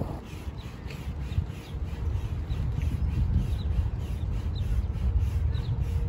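Wind on the microphone with a steady low rumble, while a bird calls over it in short, falling chirps repeated every fraction of a second.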